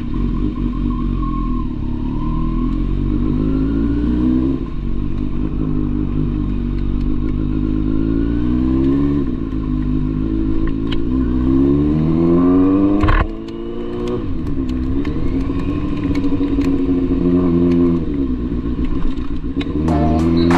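Kawasaki Z900's inline-four engine under way as the motorcycle pulls off, its pitch climbing and dropping back several times as it shifts up through the gears. A single sharp click about thirteen seconds in.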